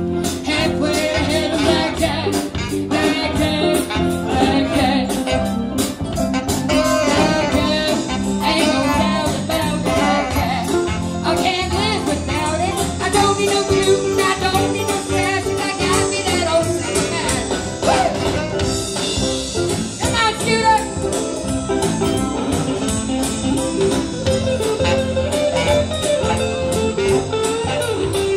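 Live band playing a blues number with saxophone, electric guitar, bass, keyboards and drums, amplified through a stage PA.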